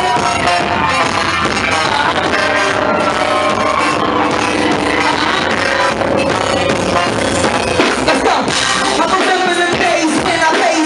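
Live band music with saxophones playing, holding several long notes over the band.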